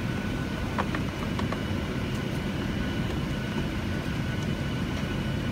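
Steady low rumble of an airliner cabin's background noise, with a few faint clicks about a second in.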